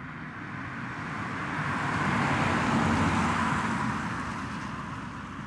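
Hyundai IONIQ Electric driving past at 30 mph on a wet road: a hiss of tyres on wet tarmac that swells to a peak about three seconds in and then fades away. Its virtual engine sound system is not active at this speed.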